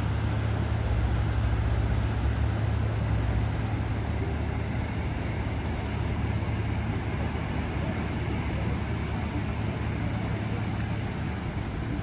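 Steady outdoor noise of breaking surf and wind on the microphone, with a low steady hum underneath that fades near the end.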